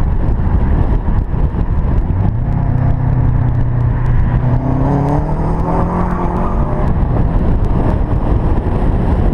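Off-road trophy truck's engine revving hard while its tyres spin in a smoky burnout. The engine note climbs about two seconds in and holds high, wavering near the middle.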